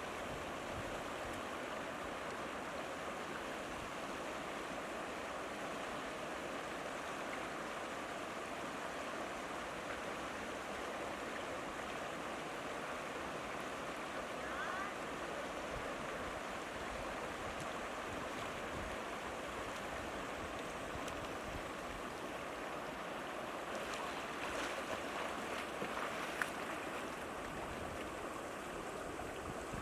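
Steady rushing of moving water, with a few light knocks near the end.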